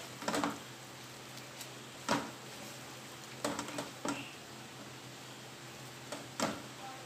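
Wooden spatula stirring a thick curry of sprouted moong and potatoes in a metal cooking pot, knocking and scraping against the pot about six times in short, separate strokes.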